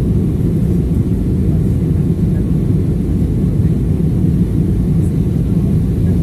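Steady low roar inside the cabin of an Airbus A320-family airliner: jet engine and airflow noise heard from a window seat as the plane descends to land.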